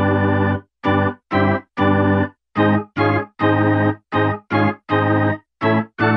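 Background music: an electronic organ sound playing short, detached chords, about two a second, with silence between them.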